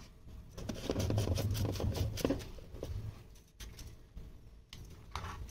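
Plastic mixer-grinder jar being handled on a kitchen counter: irregular clicks, knocks and scrapes, with a low rumble about a second in.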